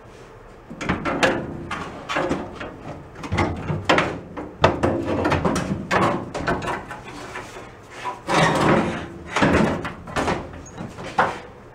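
Sheet-metal body panel of a Cushman Meter Maid being lowered and worked into place on the frame: a string of clunks, bangs and scrapes of metal on metal, starting about a second in.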